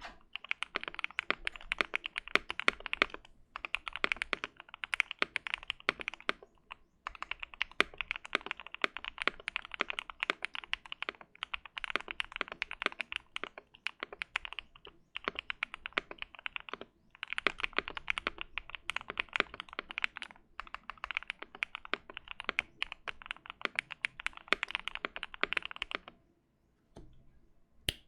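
Typing on a modded Keychron Q1 mechanical keyboard with lubed Gateron Yellow Pro switches, an FR4 plate, a tape mod and PE foam: fast runs of key clacks broken by short pauses every few seconds, and a longer pause near the end.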